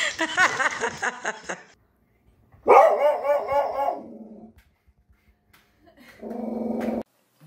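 A dog barking and howling in a long, wavering cry, then after a pause a shorter, lower, steadier cry near the end.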